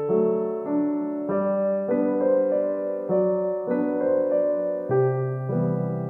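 Background music: a gentle piano piece, its notes and chords changing every second or so.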